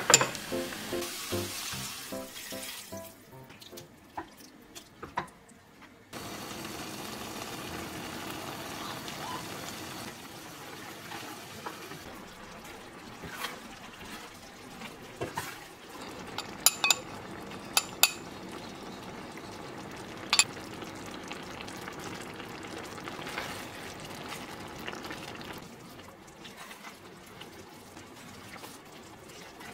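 A pot of diced radish and ground pork in red chili sauce simmering with a steady bubbling hiss, while a spatula stirs it and taps against the pot several times. Soft background music plays as well.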